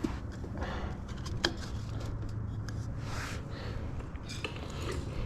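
Irregular light metal clinks and knocks of a wheel axle, spacers and bike frame as the wheel is pushed and pulled to line the axle up with the frame's axle hole.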